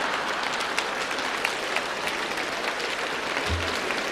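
Concert audience applauding a comedian's punchline: dense, steady clapping from a large hall crowd.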